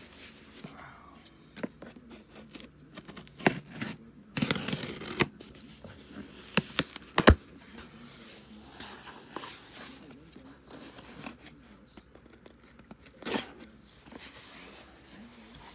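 Cardboard shipping box being torn open by hand: packing tape and cardboard flaps ripping in short bursts, with a few sharp clicks and scrapes of cardboard.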